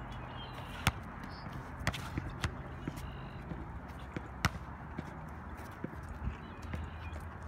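A basketball striking the hoop and bouncing on an asphalt court: a handful of sharp thuds, the loudest about a second in and about four and a half seconds in, over a steady outdoor background noise.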